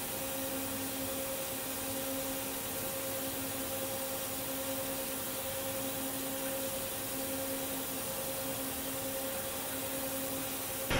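Steady hum and hiss of factory machinery, with a low steady tone and a second one about an octave higher, unchanging throughout.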